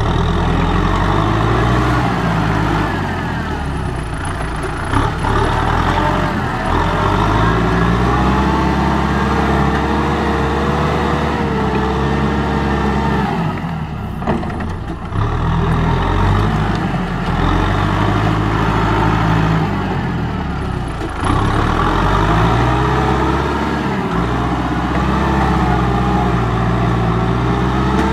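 Kubota M6040SU tractor's diesel engine working hard, stuck in deep mud. Its revs rise and fall several times, easing off briefly twice.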